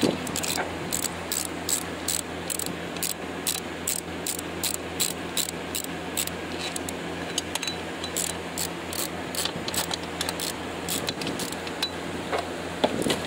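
Hand socket ratchet clicking in a steady rhythm, about three clicks a second, as a bolt is turned down in the engine bay. The clicking stops about ten seconds in, followed by a few loose clinks.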